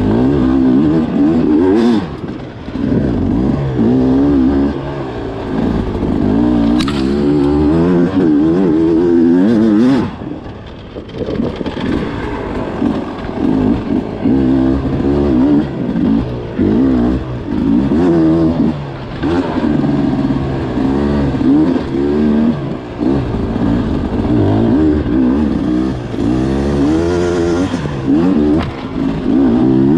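Beta 250 two-stroke enduro motorcycle engine under way, its pitch rising and falling over and over as the throttle is opened and closed. It drops back briefly about ten seconds in before pulling hard again.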